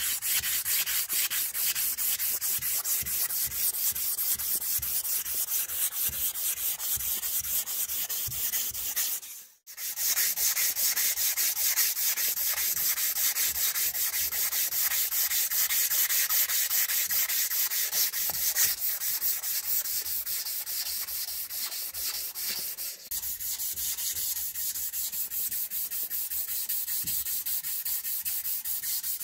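Hand sanding of a linen micarta knife handle with a strip of 240-grit wet-and-dry abrasive paper pulled rapidly back and forth around it, shoe-shine style: a steady rasping rub of quick, even strokes. It breaks off for a moment about nine seconds in, then carries on.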